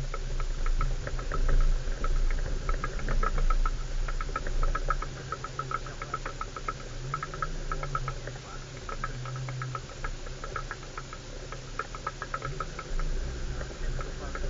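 Off-road vehicle driven slowly over a bumpy dirt track: a fast, uneven rattling and knocking from inside the cabin as it jolts over the ruts, with the engine running low underneath, its pitch rising and falling slightly a few times.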